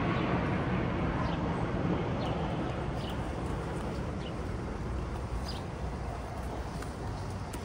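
Urban outdoor background: a steady low rumble of distant traffic, with short high bird chirps every second or so.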